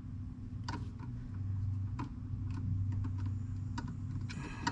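Scattered small clicks and taps of an Allen wrench and flat screwdriver turning a screw into a barrel fastener, over a low steady hum, with a short scrape near the end.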